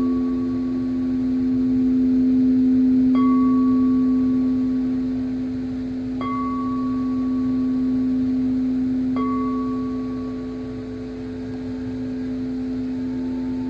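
Singing bowls: a steady, sustained low drone of held tones, with a higher bell-like tone struck three times about three seconds apart, each strike ringing out and slowly fading. A faint new higher tone joins near the end.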